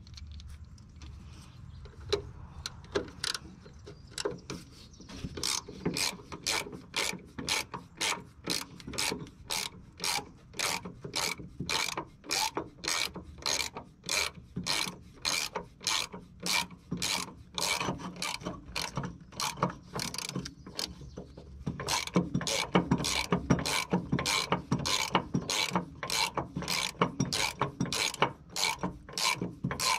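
Hand ratchet with a socket loosening a 7/16 nut, its pawl clicking in a steady run of strokes about two a second. The clicks grow louder and quicker about 22 seconds in.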